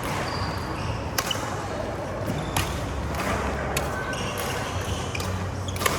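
Badminton rally: sharp racket-on-shuttlecock hits about once every second or so, with short high squeaks of shoes on the court floor between them.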